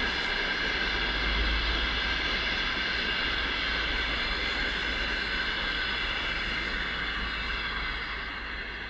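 TEP60 diesel locomotive passing with its passenger train: the engine and turbocharger make a steady high whine over the rumble of the train, which eases off a little near the end.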